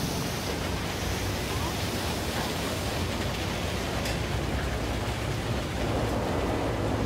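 Automated tunnel car wash running: water spraying and cloth curtain brushes washing over a car, a steady rushing hiss over a low machinery hum. A single sharp click about four seconds in.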